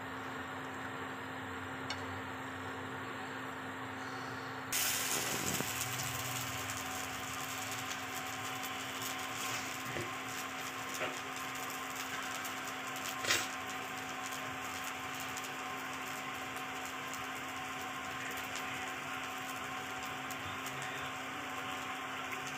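Hot oil in a wok sizzling, the hiss starting suddenly about five seconds in as an arrowroot-coated bread roll goes into the oil, then frying steadily. Under it runs the cooktop's steady hum, with a few light clicks.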